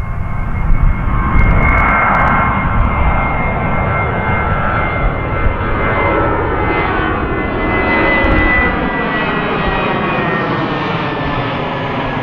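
Twin-engine jet airliner climbing out overhead: a loud, steady jet engine roar with a high fan whine running through it.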